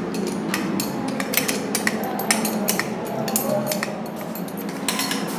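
Irregular metal clinks and light knocks, many in quick succession, from a spring isolator hanger being fitted onto threaded rod at a ceiling anchor.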